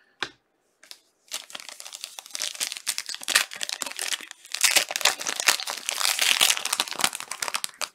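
Clear plastic card sleeves and a trading card being handled, crinkling and crackling in quick irregular bursts. It starts about a second in and gets louder past the middle.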